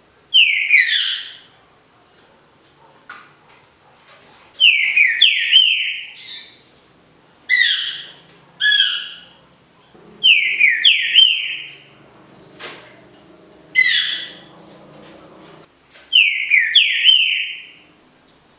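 Caged green-winged saltator (trinca-ferro) singing its 'canto liso' (Paraná smooth song): short, loud whistled phrases of quickly gliding notes, repeated about every two to three seconds with pauses between them.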